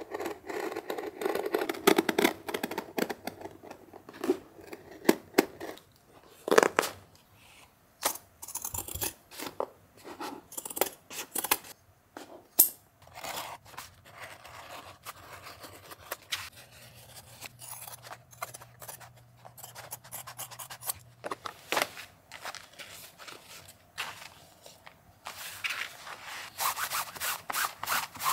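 A utility knife slitting the seam stitching of a Goyard coated-canvas bag, a dense run of scraping at the start. After that come scattered sharp clicks and short scrapes on the canvas, and near the end a cloth rubbing steadily over the canvas surface.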